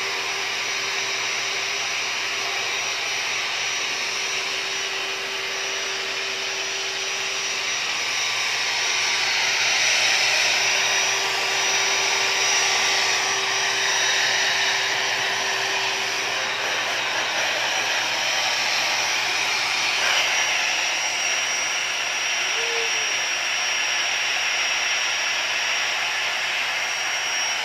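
Small electric air pump running steadily, blowing air into the ring of an inflatable family pool through its valve. The steady whirring hum changes slightly in tone about halfway through.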